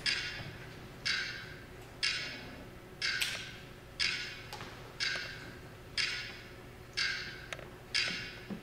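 Steady ticking of a clock sound effect, one sharp tick about every second, each tick ringing briefly before the next.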